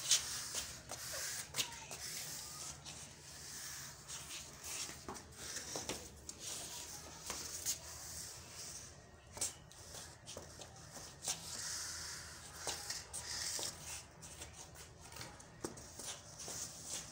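Floor squeegee swishing and scraping unevenly over a wet stone floor, with scattered small clicks and shuffling steps.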